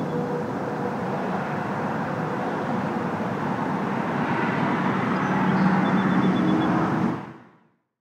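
Passing road traffic: a steady rush of tyre and engine noise that swells a little around six seconds in, then fades out near the end.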